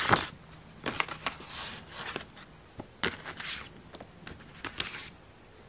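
Photographs and papers being handled and slid out of a plastic document wallet: intermittent rustling and crinkling with a few light taps and clicks.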